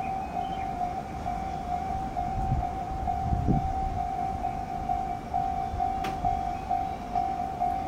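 Japanese railway level-crossing warning bell ringing in a steady, fast-repeating electronic tone. A low rumble swells and fades about halfway through, and there is a single click near the end.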